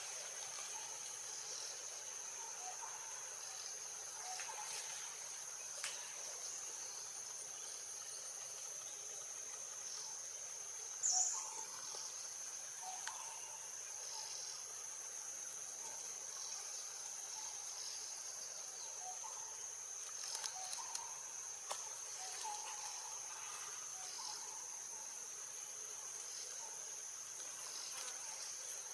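Steady high-pitched insect drone, with faint short calls scattered through it and one brief louder high chirp about eleven seconds in.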